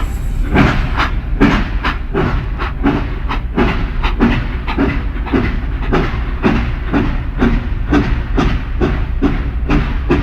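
Train sound effect: a train running along with a steady rhythmic beat of about two to three strokes a second over a constant low rumble.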